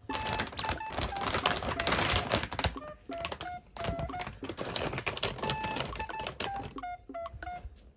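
Plastic bag of dry cat food crinkling and rustling as a hand grabs and lifts it, in two spells of about two seconds each.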